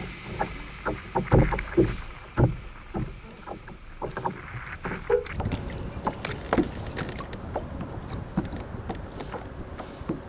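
Irregular knocks and clicks from a plastic fishing kayak and its rod and reel as a large catfish is fought on the line, over a low steady rumble of wind and water.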